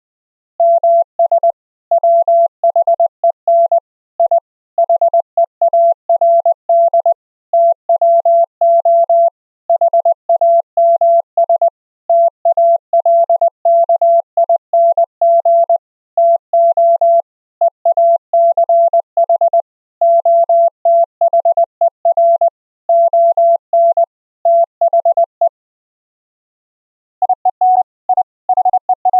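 Morse code (CW) sent as a clean sine-wave tone, one operator keying steadily in dots and dashes. Near the end it pauses for a moment, then a second operator's slightly higher-pitched tone begins keying.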